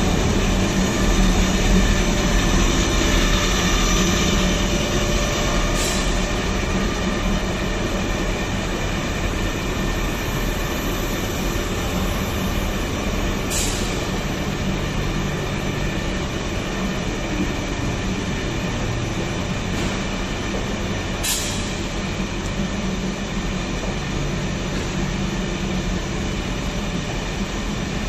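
1250 cantilever twist machine (a cable stranding machine) running: a steady mechanical drone carrying several steady tones. A faint sharp tick comes three times at even spacing, about every seven and a half seconds.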